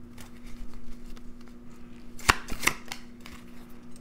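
Tarot cards being handled: light rustling and flicking, with two sharp card snaps a little past halfway. A faint steady hum runs underneath.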